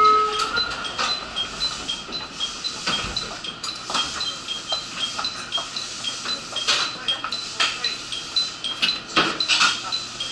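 A two-tone electronic chime alternates high and low, repeating steadily two to three times a second, with scattered knocks and clinks over it.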